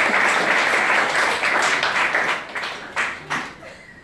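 Audience applauding, the clapping thinning to scattered separate claps and dying away over the last second or so.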